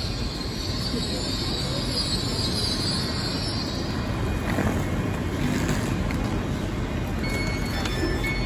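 Steady low rumbling hum of a stationary LNER Azuma train standing at a station platform, with a high hiss that fades out about three and a half seconds in. Near the end, a run of short, repeated electronic beeps starts.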